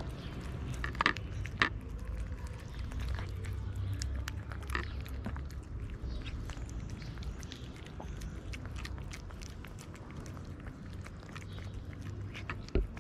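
Two cats eating wet cat food from a plate close up: a string of small wet chewing and lapping clicks, with a few sharper clicks about a second in and near the end. A low steady rumble runs underneath.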